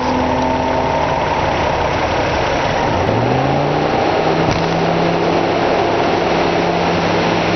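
Mazda Xedos 6's 2.0-litre V6 engine running under way, its revs climbing about three seconds in and then holding steady, over a constant rush of road noise.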